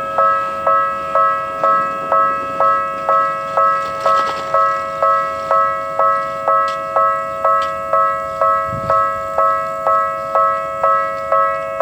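Japanese railway level-crossing alarm ringing its two-tone 'kan-kan' at a steady pace of about two strikes a second, the warning that a train is approaching or passing.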